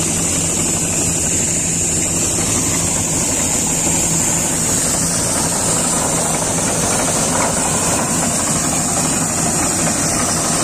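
Combine harvester running steadily while unloading wheat grain through its auger pipe into a tractor trolley: a dense, constant machine noise with a steady low hum and a high hiss over it.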